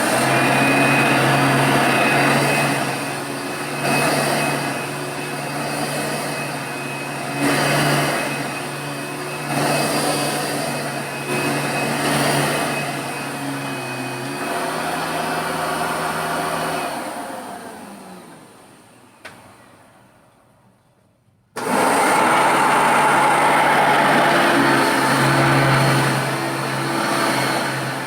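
Hoover Elite 1 upright vacuum cleaner motor running with a steady hum that swells and eases every second or two; about two-thirds of the way through it is switched off and winds down with falling pitch to near silence. A few seconds later a second Hoover Elite upright vacuum starts abruptly and runs.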